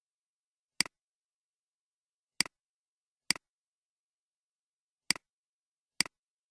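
Computer mouse button clicking: five separate sharp clicks at uneven intervals.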